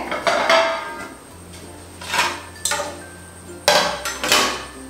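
Metal kitchen utensils clinking about six times, each strike ringing briefly: a spoon or vessel knocking against steel cookware.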